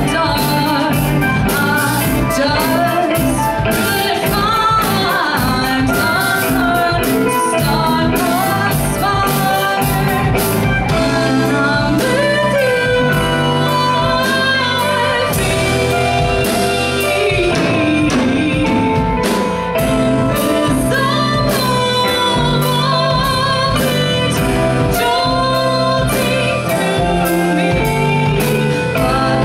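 A live rock band playing a song: a woman singing lead over electric guitar, bass guitar, keyboard and drums.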